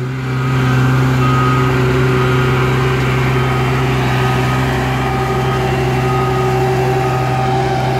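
Cat CB22 mini tandem vibratory roller's diesel engine running steadily under way, getting a little louder about half a second in. A short beeping alarm sounds over it again and again.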